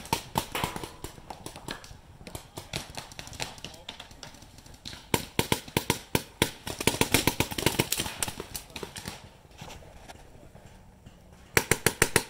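Paintball markers firing rapid strings of shots, about ten a second, including an electronic Adrenalin Angel LCD marker. There is a burst at the start, a longer string in the middle, and another fast string near the end.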